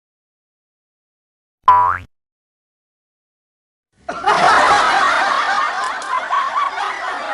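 A short pitched sound effect blips once about two seconds in; from about four seconds on, a laughter sound effect of several people laughing together runs on.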